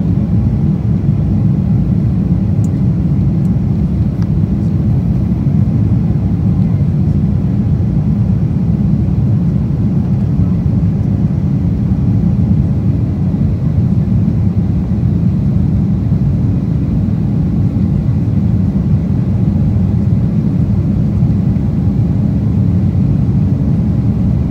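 Cabin noise of an Embraer 190 in flight after takeoff: the steady low rush of its two General Electric CF34-10E turbofan engines and the air over the fuselage, heard from a window seat, with a few faint steady hums above it.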